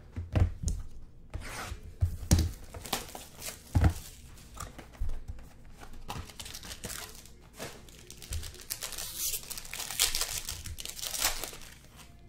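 A trading card box being handled and opened, with a few knocks and thuds early on. After that comes a long stretch of crinkling and tearing as the foil wrapper around the card inside is ripped open.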